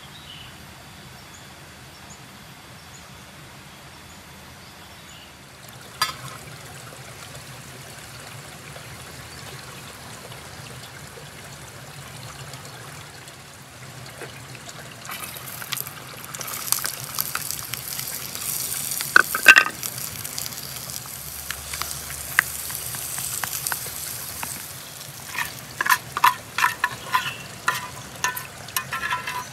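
Food sizzling in a hot camp frying pan over a small wood-burning stove, starting about halfway through once it goes into the pan, with metal clinks of a utensil against the pan and a quick run of clicks and scrapes near the end.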